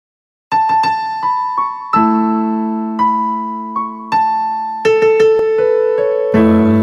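Slow solo piano intro: single high melody notes over held chords, starting about half a second in, with a fuller, lower chord near the end.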